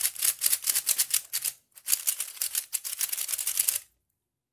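MoFang JiaoShi MF3RS3 3x3 speed cube being turned fast, a rapid run of clacky plastic clicks from its layers, with a brief break a little under two seconds in and a stop shortly before the end. The cube is still unlubricated and dry.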